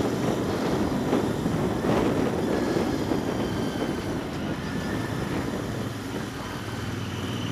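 Royal Enfield Interceptor 650's parallel-twin engine running steadily on the move, with wind noise over it.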